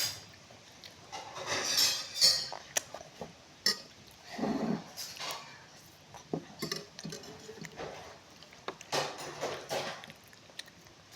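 Cutlery clinking and scraping against a plate during a meal, in scattered sharp clicks and short bursts, the loudest about two seconds in.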